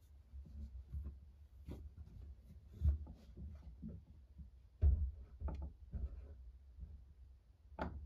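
Irregular muffled knocks, taps and rubbing over a low rumble, heard from inside a washing machine drum, with the loudest thumps about three and five seconds in and another just before the end.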